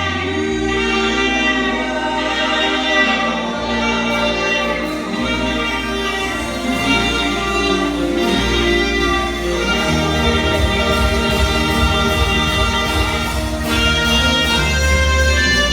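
Gospel worship music: singing voices over sustained instrumental chords and a deep bass that shifts note a few times.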